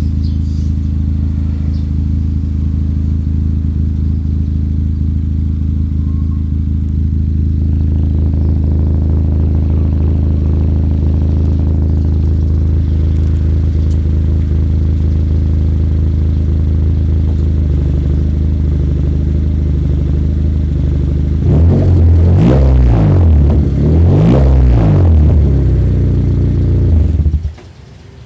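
Daihatsu Taruna Oxxy engine idling steadily through a stainless HKS Gronel exhaust with the middle resonator removed, giving a deep, round bass note. About three-quarters of the way in it is revved in a few quick blips, rising and falling, and then cuts off near the end.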